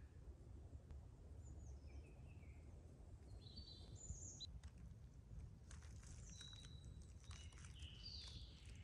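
Faint woodland birdsong: small birds giving scattered short chirps and trills, busier in the second half, over a low steady background rumble.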